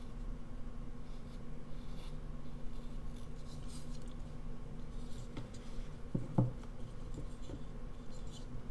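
Whittling knife paring small shavings from a basswood figure in several short, faint scraping cuts, with a soft knock of handling about six and a half seconds in.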